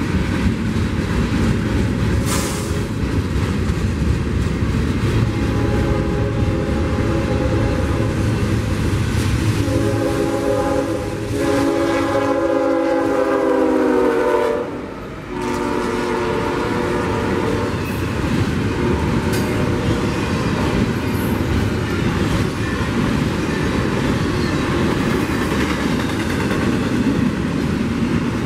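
Freight trains rolling through a grade crossing, with wheels rumbling and clacking throughout. A Union Pacific locomotive's multi-note horn sounds for about ten seconds, loudest as the engine comes by; its pitch drops as it passes and it cuts off, then sounds more weakly for a few seconds more.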